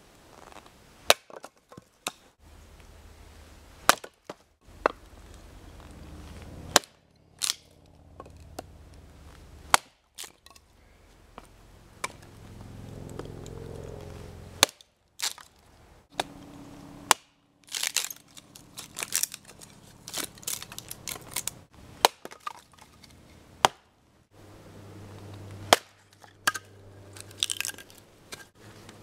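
Wetterlings large hunting axe chopping and splitting knotty dead wood: a series of sharp, irregularly spaced strikes, some coming in quick clusters, with the wood cracking.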